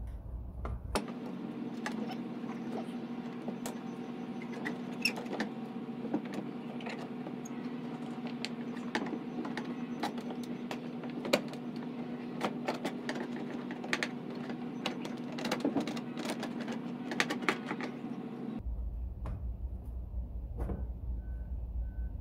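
Scattered sharp metallic clicks and clinks of hand tools and parts being worked on a car's transmission and shifter, over a steady low hum that starts about a second in and stops shortly before the end.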